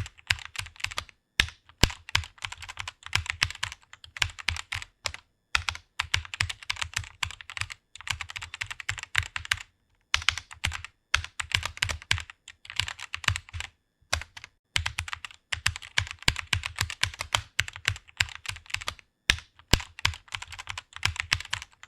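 Fast typing on a computer keyboard: rapid key clicks in runs of a second or two, with brief pauses between words and phrases.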